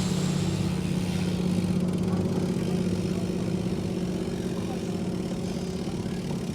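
A steady low engine hum with a constant pitch, slowly fading.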